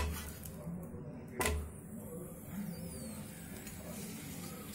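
Metal spatula knocking on a griddle pan twice, about a second and a half apart, while a parotta is turned over, the second knock with a soft thud; a faint steady background hum runs between the knocks.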